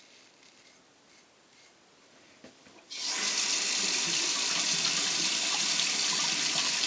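Tap turned on about three seconds in, water running steadily into a sink.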